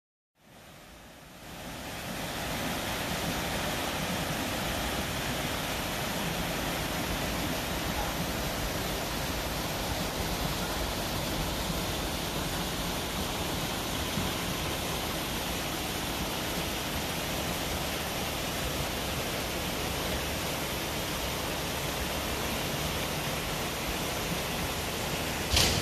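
Steady rushing of a river flowing over rocks, fading in over the first two seconds. A brief knock near the end.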